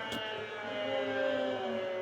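Emergency alert broadcast signal: several steady electronic tones sounding together as one held, droning chord.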